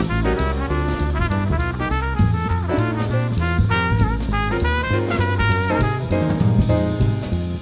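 Live jazz quartet: a trumpet plays a fast melodic line over piano, upright bass and a drum kit with busy cymbal and drum strokes.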